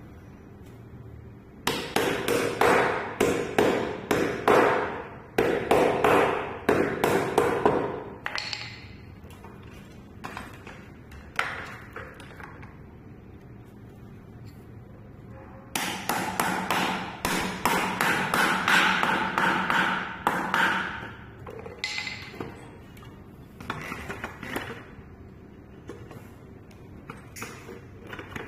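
Quick hammer blows on metal, about three a second, in two runs of several seconds each, every blow ringing with a ping, with a few lighter knocks in between. This is typical of driving a steering-head bearing race in or out of an electric scooter's steering tube.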